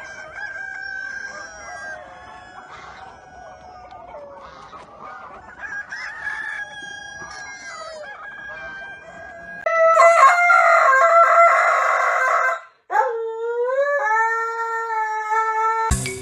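A flock of chickens clucking, then a rooster crowing twice, two long loud calls, the second rising at the start and then held steady.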